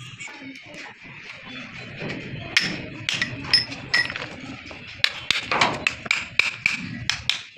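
Steel gears and synchro hub of a Toyota HiAce manual gearbox clinking and knocking as they are fitted and turned on the shaft: a run of sharp metal-on-metal taps, some ringing briefly, coming thick and fast in the second half.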